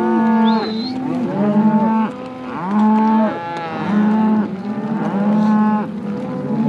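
A herd of cattle mooing, many calls overlapping and following one another. A brief high rising whistle cuts in about half a second in.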